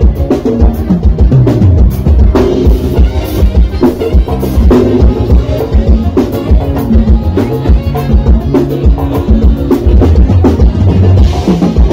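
Live band playing loud amplified music through a PA, with a steady drum-kit beat and a heavy kick drum, electric guitar and accordion.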